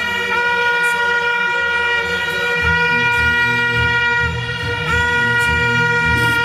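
A crowd member's hand-held horn blown in one long, steady, high blast, dipping only briefly a few times. It is loud over sound-system music with a heavy bass beat.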